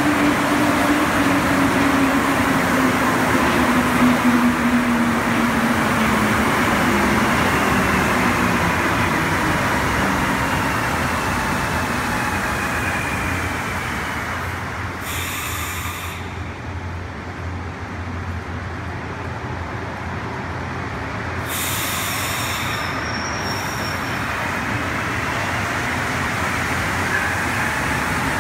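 Montreal Metro rubber-tyred train running along the platform, a loud rumble of tyres and running gear with a whine that falls in pitch. The noise eases off in the middle, broken twice by short bursts of hiss, then another train's running noise builds near the end.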